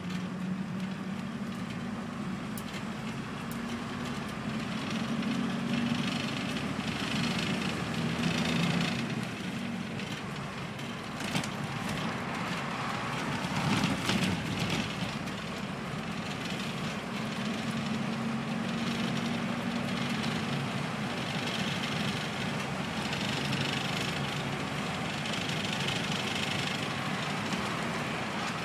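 Routemaster double-decker bus engine running on the move, heard from inside on the upper deck: a steady engine drone over road noise that swells and eases, with a couple of sharp knocks around the middle.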